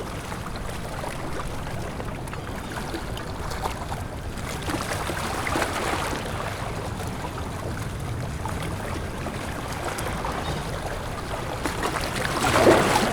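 Seawater washing and lapping along the shore of a beach inlet, a steady wash that swells about five seconds in and again, louder, near the end.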